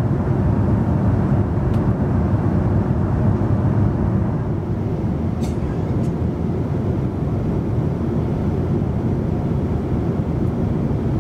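Steady cabin noise of a Boeing 787-9 airliner in flight: an even low rumble that holds at one level throughout.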